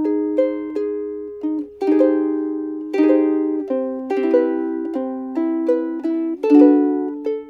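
Seilen SLVS-810 soprano ukulele with a Brazilian rosewood body playing a melody of plucked notes and chords, each note ringing and fading before the next.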